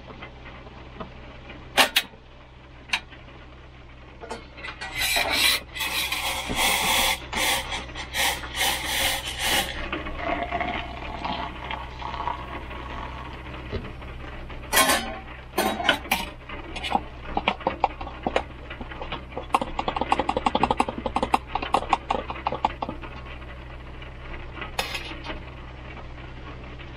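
Steady low hum of an idling truck engine, with scattered clicks, knocks and rubbing of things being handled in the cab, and a stretch of fast, even scraping a little past the middle.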